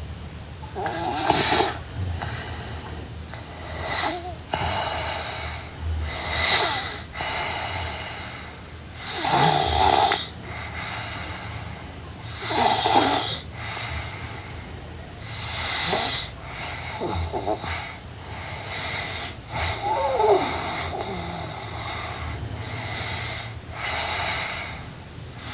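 A sleeping girl snoring, with a noisy, slightly wheezy snore about every three to four seconds.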